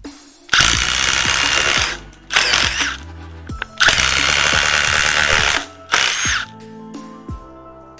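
FLEX 24V cordless impact driver hammering a screw in, in four bursts: a run of about a second and a half, a short burst, a longer run of about two seconds, then a last short burst.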